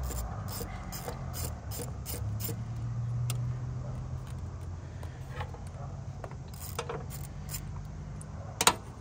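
Socket ratchet wrench clicking as a bolt is turned: a quick even run of about three clicks a second, then slower scattered clicks and one sharp click near the end, over a low steady hum.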